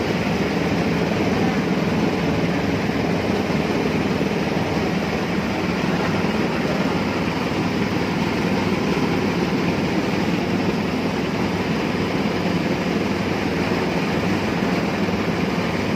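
Motorized coconut grinding machine running steadily, a constant mechanical noise with no breaks.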